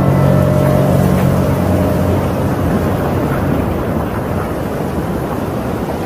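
A held keyboard chord fades out over the first two seconds, giving way to a steady, loud rushing noise with no tune.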